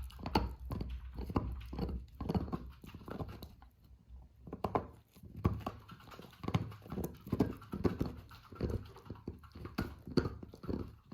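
Labradoodle puppy gnawing on a chew toy: repeated uneven crunching and clicking of teeth on the toy, a few bites a second, with a brief pause about four seconds in.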